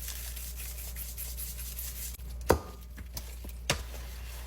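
Soft rubbing and rustling from seasoning and mixing sliced raw chicken in a bowl, with two light clicks, about a second apart, past the middle.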